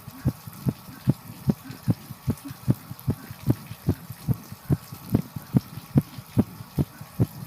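A person's heartbeat picked up close, with regular low thumps a little more than twice a second.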